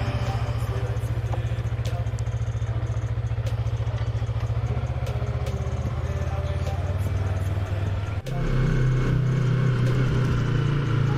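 2021 Yamaha MT-03's 321 cc parallel-twin engine running steadily while riding; about eight seconds in it briefly drops off, then comes back higher-pitched and louder.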